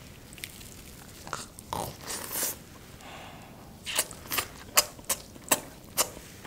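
Mouth sounds of someone eating lobster tail meat straight from the shell: soft sucking and slurping, then a quick run of about six wet smacks and clicks in the second half.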